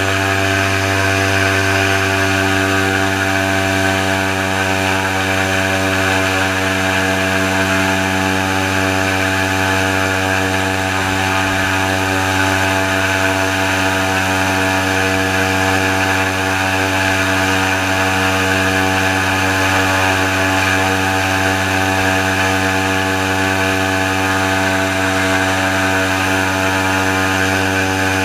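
Airboat engine and air propeller running at a steady cruising speed, one loud, even drone that holds the same pitch throughout.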